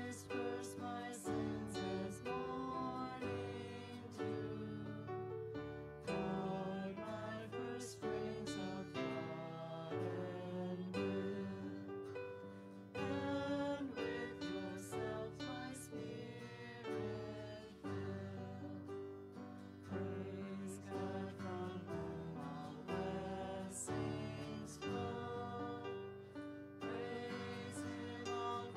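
A few voices singing a slow hymn together, accompanied by a strummed acoustic guitar.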